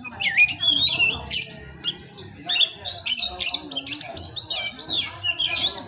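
Oriental magpie-robin (kacer) singing a fast, unbroken song of varied whistled glides mixed with harsh, scratchy notes.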